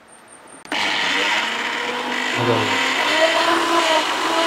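Miyako 1300-watt countertop blender switched on with its empty 2-litre jar: the motor starts suddenly under a second in and then runs steadily at a loud, even pitch.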